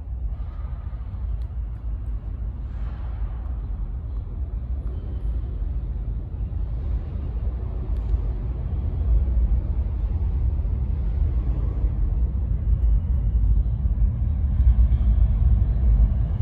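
Low rumble of New York City subway trains in the tunnel, growing gradually louder toward the end as a train approaches the platform.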